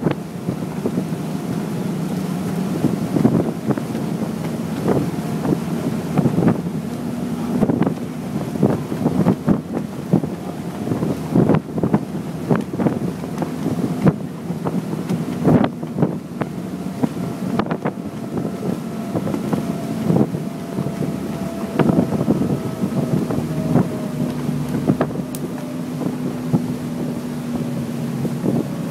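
Passenger ferry's engines running with a steady drone, with wind gusting irregularly across the phone's microphone and the rush of water.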